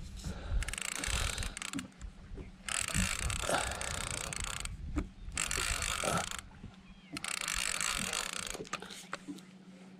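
Fishing reel being cranked in spurts of a second or two while reeling in a hooked fish, its gears whirring and clicking, over a faint steady low hum.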